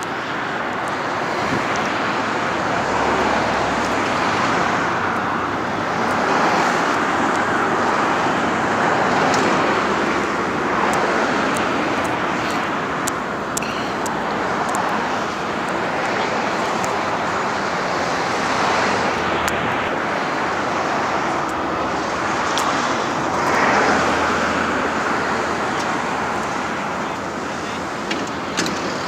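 Road traffic noise: vehicles going by, the sound swelling and fading every few seconds, with a few light clicks.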